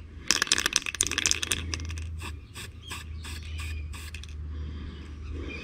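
Aerosol spray paint can being shaken, its mixing ball rattling rapidly, then short hisses of spray as the paint goes on.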